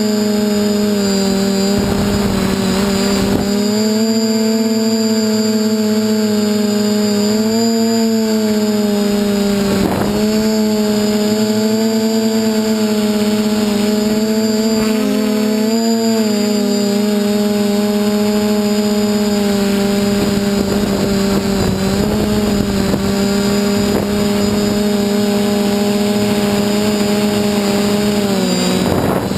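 DJI F450 quadcopter's brushless motors and propellers whining steadily, the pitch wavering slightly with throttle changes, with a few short rushes of noise.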